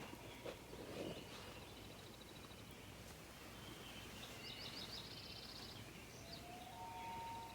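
Faint outdoor night ambience with brief, rapid high chirping trills from birds or insects; near the end a long, steady whistled call starts up. It is the creepy noise the campers were hearing.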